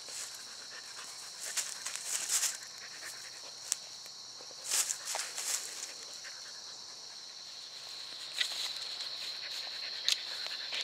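A steady high-pitched drone of insects, with scattered rustles and crunches of dry pine needles and leaf litter under a puppy's paws as it steps and paws around a box turtle.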